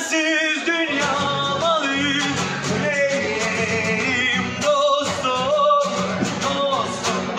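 Male street singer singing a slow melody with strong vibrato on long held notes, over his own bowed string instrument.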